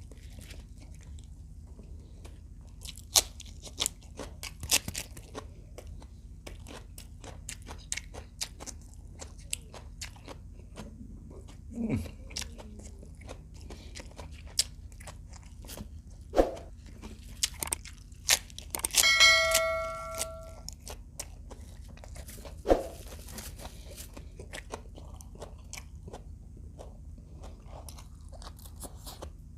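Crunching and chewing of crispy fried adobo quail, with irregular sharp crunches. About two-thirds of the way through, a brief ringing clink sounds for about a second and a half.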